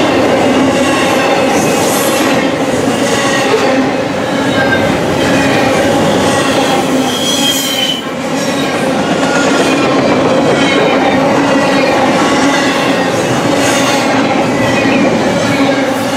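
Double-stack intermodal well cars rolling past close by at track speed: a steady rumble and clatter of steel wheels on rail, with high wheel squeal coming and going. The noise dips briefly about halfway through.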